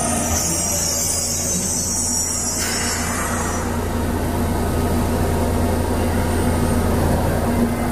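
Yokohama Municipal Subway Blue Line 3000A-series train coming to a stop at a platform. A faint falling whine dies away at the start, a hiss rises about two and a half seconds in and ends about a second later, and a steady low hum of the standing train continues.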